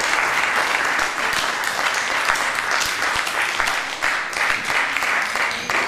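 Audience applauding, dense clapping that tails off near the end.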